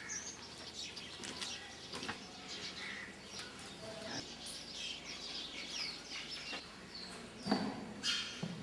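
Small birds chirping and twittering throughout, in many short, quick calls, with two louder, sharper sounds near the end.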